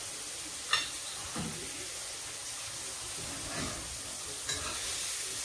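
Mushrooms and eggs frying in a pan, giving a steady sizzle, while a spoon stirs the mushrooms. One sharp click comes about three-quarters of a second in.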